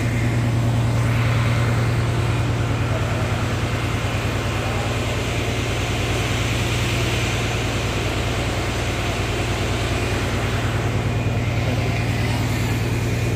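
River ferry's engine running steadily under way: a constant low drone with a fast, even throb.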